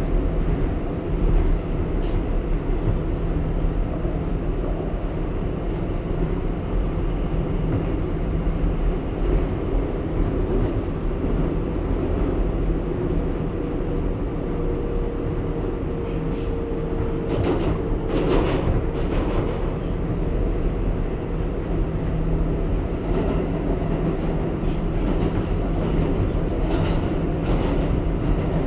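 R188 subway train running along the track, a continuous steady running noise, with a short cluster of sharp knocks about two-thirds of the way through.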